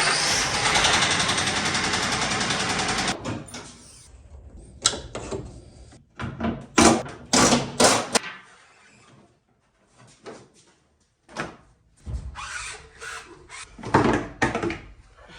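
Ford F-150 engine running with a rapid knock, the sound of rod knock from a worn connecting-rod bearing. It stops about three seconds in, and a series of irregular clunks and bangs follows.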